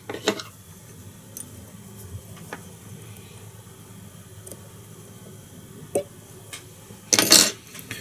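Fly-tying tools handled at the vise: a few small metallic clicks and clinks, with a louder clatter about seven seconds in.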